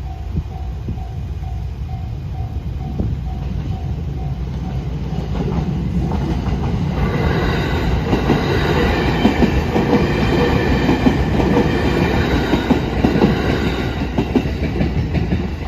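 Japanese level-crossing alarm ringing in a quick repeating ding, then a train passes over the crossing from about six seconds in, its wheels clacking over the rail joints, louder as it goes by.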